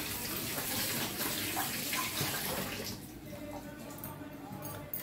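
Water running from a kitchen tap, then turned off about three seconds in.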